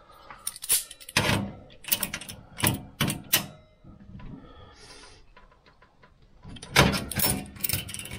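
Locking pliers clicking and clanking on a laser-cut sheet-steel plate as they are clamped onto a tab and the tab is bent up. A run of sharp metallic clicks, a quieter stretch in the middle, then another run of clicks near the end.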